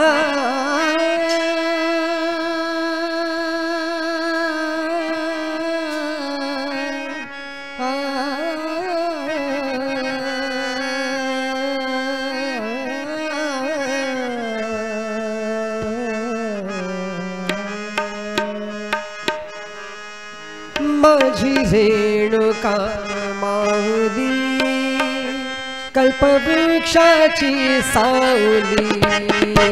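Devotional bhajan. A man sings long, drawn-out notes that waver and glide over a harmonium. About twenty seconds in, the tabla comes in and the music becomes louder and fuller.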